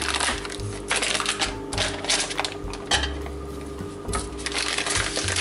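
Paper wrapper crinkling and crackling as a block of pork lard is unwrapped and handled over a frying pan: an irregular run of sharp crackles and clicks.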